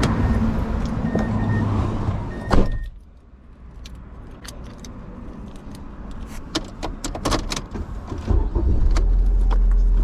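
Vehicle running with two short beeps, then a door shutting with a loud clunk about two and a half seconds in that cuts the outside noise. Keys jangle and click after that, and a steady low engine rumble comes up near the end.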